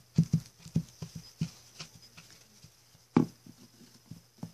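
Toy horses being handled and moved about, giving a run of irregular light taps and knocks like hoofbeats, with one louder knock about three seconds in.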